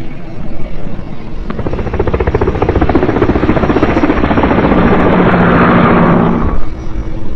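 Helicopter rotor blades chopping rapidly. The sound grows louder from about a second and a half in, then cuts off abruptly near the end.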